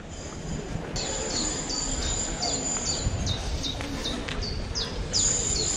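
Bird chirping: a quick series of short, high notes that fall in pitch, two or three a second, over a thin steady high tone.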